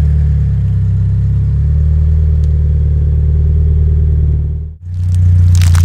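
Car engine idling steadily as the car creeps forward, the soft Swiss rolls squashing under the tyre with little sound of their own. Near the end, after a brief drop-out, a crackling crunch begins.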